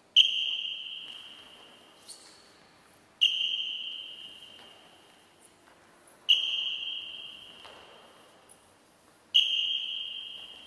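Four short, high whistle blasts about three seconds apart, each ringing on in the hall's echo as it fades, cueing the players' repetitions of a low forward-dive drill.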